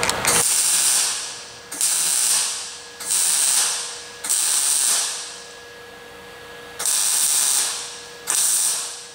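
MIG (wire-feed) welder arc crackling in six short bursts, stitch-welding a steel patch onto a thin sheet-steel fuel tank, with pauses between the bursts and a faint steady hum underneath.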